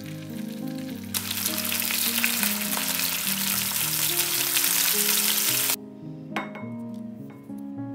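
Beef pieces sizzling as they sear in hot oil in a frying pan, a loud steady hiss that starts about a second in and cuts off suddenly near six seconds. A few light clicks follow near the end.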